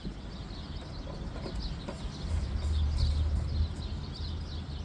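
Birds chirping in quick repeated notes in the background, with a low rumble that swells for about a second and a half around the middle.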